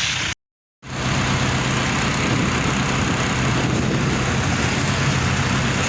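Steady street traffic noise with the low, even hum of a nearby vehicle engine running. It starts after a brief gap of silence just under a second in.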